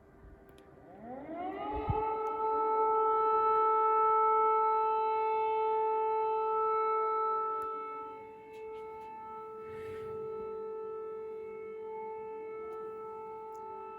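Civil-defence air raid siren winding up in pitch over about a second and a half, then holding one steady tone. It is loudest for the first few seconds of the held tone, dips a little after about eight seconds and carries on, sounding an air raid alert.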